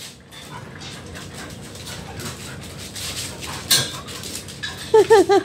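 Two dogs scuffling in rough play at a metal barred gate, with shuffling, light metallic clinks and a sharp rattle partway through. Near the end comes a quick run of short, high cries.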